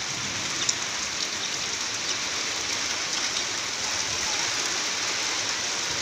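Heavy rain falling steadily on a wet concrete yard: an even hiss with a few light ticks.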